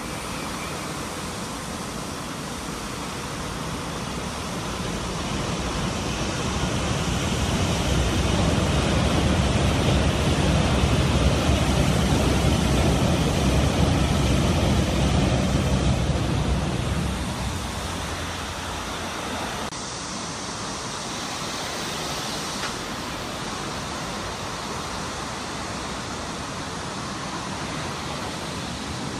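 Seoul Metro Line 1 rheostatic-control electric train running over a bridge: a steady rumble of wheels on rail, which swells to its loudest in the middle as the train passes and then settles back.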